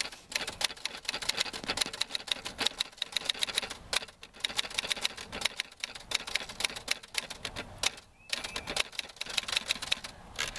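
Manual portable typewriter being typed on: a quick, uneven run of key strikes clacking against the platen, with a couple of short pauses.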